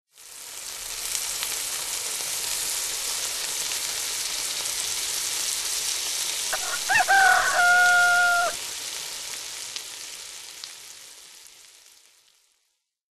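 Eggs frying in a pan, a steady sizzle that fades away over the last few seconds. About seven seconds in, a rooster crows once, the loudest sound, rising at first and then holding a long note.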